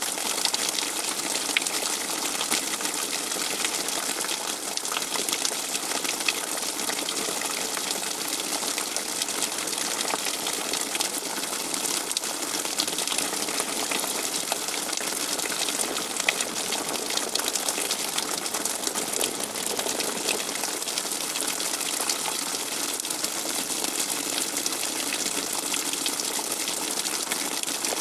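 Heavy rain falling steadily: a dense, even hiss made of many small drop hits.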